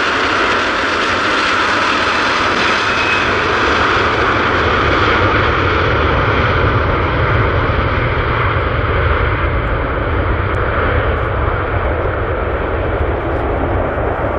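Airbus A330's twin jet engines running at high power as the airliner rolls down the runway. The higher whine fades after about four seconds as the aircraft moves away, leaving a deep, steady rumble.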